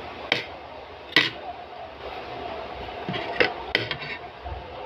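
Metal spoon and fork clinking against a plate of rice and green beans, four sharp clinks spread over a few seconds.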